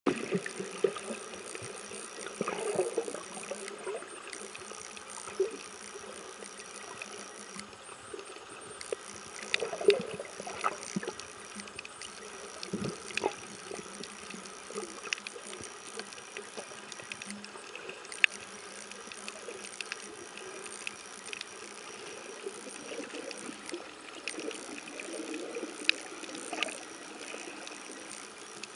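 Underwater sound heard through a submerged camera: a steady muffled hiss with bubbling gurgles now and then and scattered sharp clicks.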